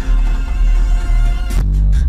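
Music played loudly through a car's two Rock Series RKS-1204OS subwoofers driven by a Rock Series RKS-UL3000.1 amplifier, with deep bass dominating. About one and a half seconds in the upper sounds thin out, leaving pitched bass notes.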